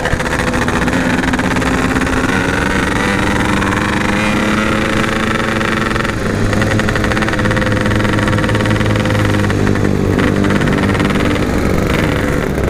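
Yamaha RX-King two-stroke single-cylinder motorcycle riding at an easy cruising pace, its engine and stock-style exhaust running steadily, with brief dips in the engine note about six and ten seconds in.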